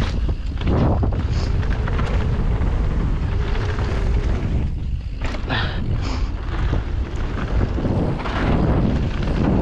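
Wind rushing over the microphone of a mountain bike riding fast down a dirt trail, over a steady rumble of tyres on packed dirt and loose stones, with scattered clicks and rattles.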